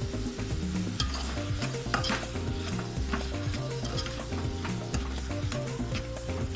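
A steel spoon stirring and scraping a tomato-and-onion masala around a metal pot as it fries, sizzling steadily, with a scrape of the spoon about once a second.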